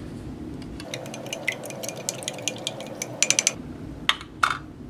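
Plastic spoon stirring hot cocoa in a glass measuring cup: a quick run of light clicks against the glass, then two louder knocks near the end.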